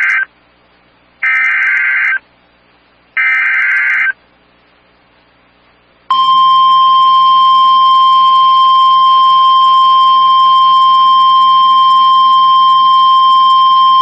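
NOAA Weather Radio emergency alert: three short bursts of screeching digital alert-header data, each about a second long and about a second apart, announce a flash flood warning. About six seconds in, the steady, single-pitched warning alarm tone starts and holds, signalling that the spoken warning is about to follow.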